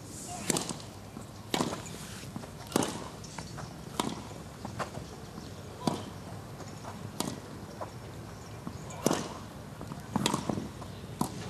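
A tennis rally on a grass court: the ball is struck back and forth by the players' rackets, a sharp hit about every second or so, about nine in all, with fainter knocks from the ball between the hits.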